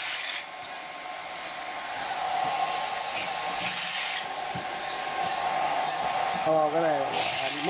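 Cooling fan of a HANSHI 140A handheld inverter stick welder running: a steady whirring hiss with a thin high whine, a little louder about two seconds in.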